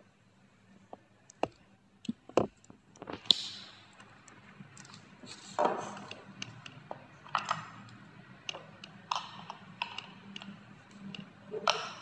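Clicks, taps and short rustles of small hard-plastic parts being handled: the probe cable's plug pushed into a handheld fetal Doppler and the unit turned over to work at its back cover. The clicks come irregularly, several per second at times.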